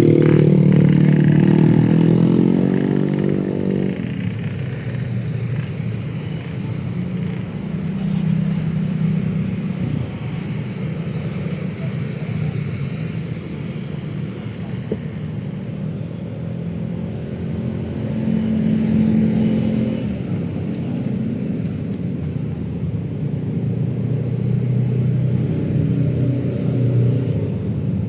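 Street traffic of cars and motorbikes. A vehicle engine passes close and loud in the first few seconds, then a steady hum of engines and tyres follows, swelling as more vehicles pass.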